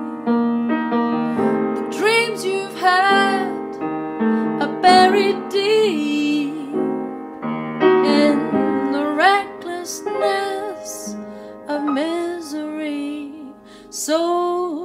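A woman singing solo, her held notes bending and wavering, accompanied by an upright acoustic piano.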